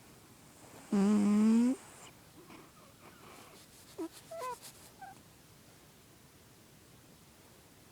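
A sleeping domestic cat snoring: one loud, pitched snore lasting just under a second, about a second in, followed a few seconds later by a few faint short squeaks. The vet has found the cat healthy, so the snoring is harmless.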